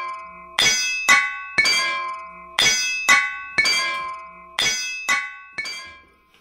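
Hammer striking an anvil, as a blacksmith's forge effect: sharp metallic clangs, each ringing on and dying away, about two strikes a second in an even rhythm.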